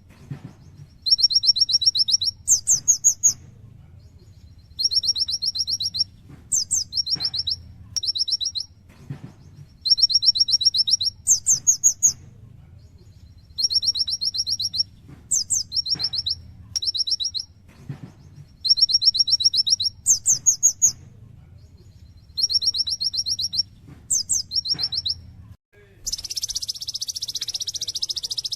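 Kolibri ninja (a sunbird) singing: bursts of rapid, high trilled notes with sharper, even higher notes mixed in, the same phrase repeating about every four seconds. Near the end the song cuts off briefly and gives way to continuous high twittering.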